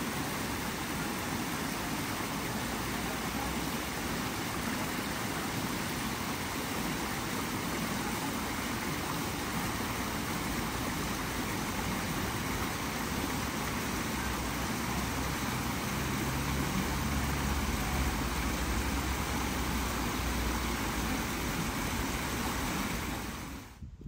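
Small forest waterfall, water pouring over rocks in a steady, even rush, with a deeper rumble swelling for a few seconds past the middle. It stops abruptly shortly before the end.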